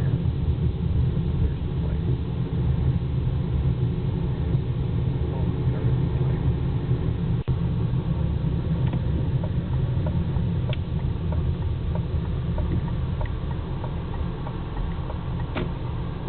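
Steady low rumble of a car's engine and tyres on the road, heard from inside the cabin while driving slowly. A few faint ticks in the second half, and a brief drop in the sound about seven and a half seconds in.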